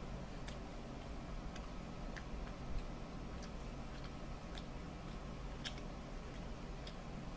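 Soft, irregular wet clicks of eating: a person chewing tandoori chicken and tearing the meat apart with the fingers. A steady low hum runs underneath.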